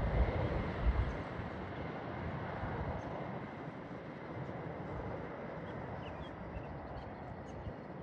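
Jet airliner engine noise, a broad rumble that is loudest at the start and slowly fades away, with wind buffeting the microphone in the first second.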